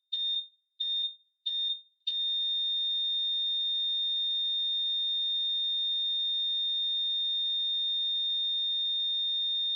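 Electronic beep sound effect from a subscribe-button end-screen animation. Three short high beeps come about two-thirds of a second apart, then about two seconds in a long steady high tone that holds.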